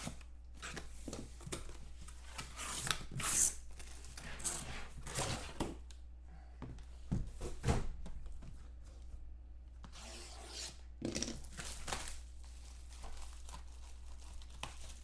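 Packing tape and a cardboard shipping box being torn open, and the box and its packaging rubbed and handled: irregular ripping and scraping noises, loudest about three seconds in and again near eight seconds, over a low steady hum.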